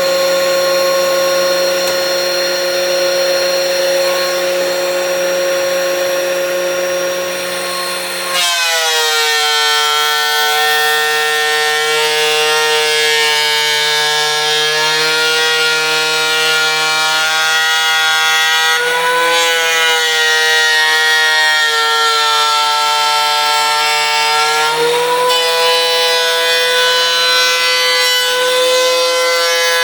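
DeWalt benchtop thickness planer running with a loud, steady motor whine. About eight seconds in the pitch drops sharply as the motor takes load, which fits a board being fed into the cutterhead. It runs on under load with brief pitch dips and recoveries later.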